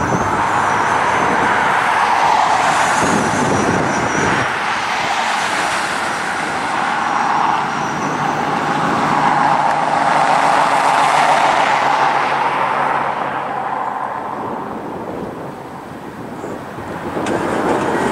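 Rushing noise of road traffic going past, swelling and fading several times and dipping briefly near the end. Under it runs a low, steady drone from C-130 Hercules turboprop transports flying over.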